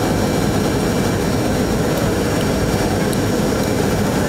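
Steady jet airliner cabin noise heard from inside the passenger cabin: engines and rushing air during the landing approach, with a few faint steady high whines above it.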